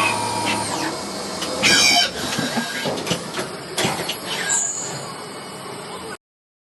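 Machine-shop noise from a CNC vertical machining centre: a steady hum with a held tone that stops under a second in, then a short loud metallic squeal and scattered clanks and clicks. The sound cuts off suddenly near the end.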